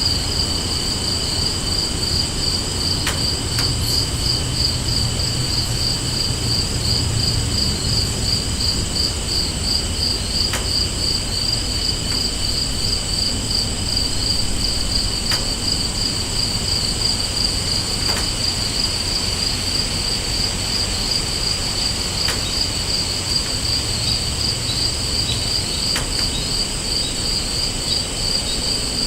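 An evening insect chorus of crickets chirping in a steady, rapid pulse. Other steady insect trills sit above and below it, over a low rumble.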